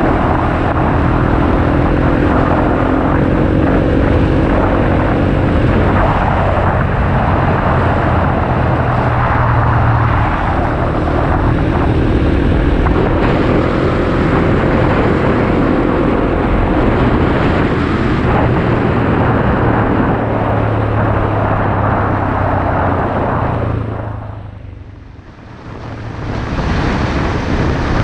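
Honda XR250 Motard's single-cylinder four-stroke engine running while riding, under loud wind rush on the helmet or bike camera. The sound fades down sharply about 24 seconds in and comes back up a couple of seconds later.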